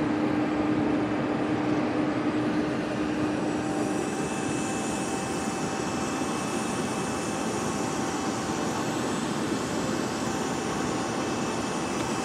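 Steady rushing whine of aircraft turbine noise on the apron, with several thin, high steady tones; a lower hum fades out about four seconds in.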